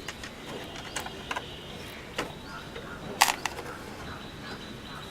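A few sharp clicks and knocks, such as objects being handled and set down, the loudest a little past halfway, over a steady background with faint bird chirps.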